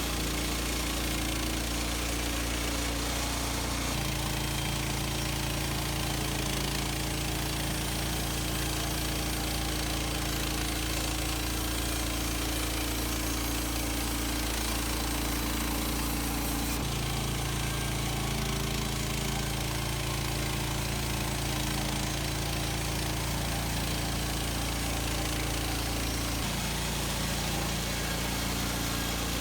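Portable bandsaw sawmill's small gas engine running steadily under throttle while milling a log, its pitch and tone changing abruptly three times.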